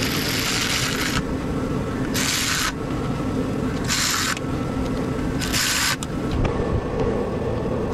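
Power ratchet run in four short bursts of hissing whirr, loosening the bolts on a hybrid battery pack's metal bracket, over a steady low rumble.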